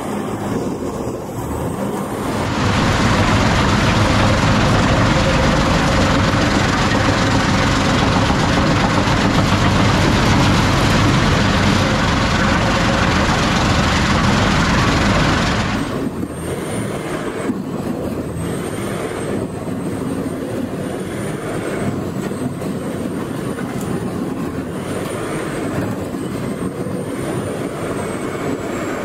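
Heavy machinery running. About two seconds in, a loud, even grinding noise takes over and holds until about sixteen seconds in. It then gives way to a lower steady engine noise with a faint whine that rises and falls every second or two.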